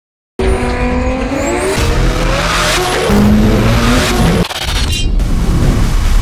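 Twin-turbo Lamborghini engine at full throttle on a drag pass, its pitch climbing through the gears with a couple of upshifts. It cuts in suddenly.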